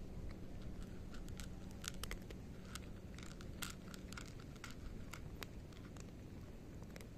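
A cat crunching dry kibble: faint, irregular crisp crunches as it chews mouthful after mouthful.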